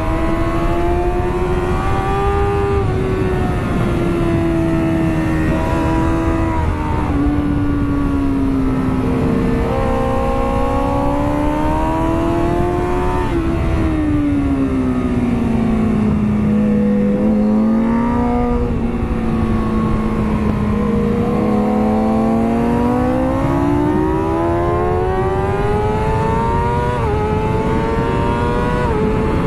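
2009 Kawasaki ZX-6R's inline-four engine heard from onboard while lapping a race track, its pitch rising and dropping through gear changes and throttle. The pitch sinks to its lowest around the middle, then climbs steadily again, with a constant rush of wind underneath.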